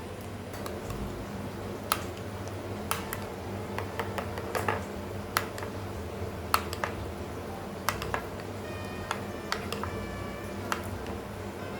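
Irregular sharp clicks and taps, roughly one or two a second, over a steady low hum and faint background music.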